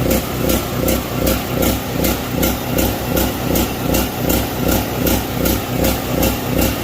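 Powermate 3000 portable generator's engine running steadily under its own power, with a regular pulsing rise and fall, a few beats a second: the engine is surging slightly.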